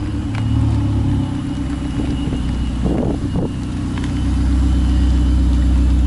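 Car engine running with a steady low hum, getting louder about four seconds in.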